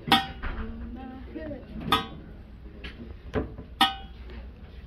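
Sharp metallic clinks, three of them about two seconds apart, each ringing briefly, with a duller knock between the last two.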